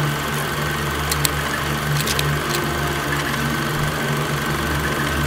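Super 8 film projector running: a steady mechanical whirr with a low hum, and a few sharp clicks between about one and two and a half seconds in.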